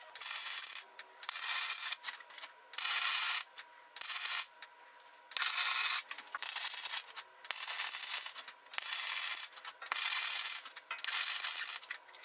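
MIG welding arc crackling as 1/8-inch steel round-rod hooks are welded to a steel frame: a run of short welds, each about a second long, with brief pauses between them.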